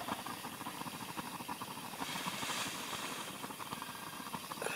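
Steady hiss of a cartridge-gas burner running.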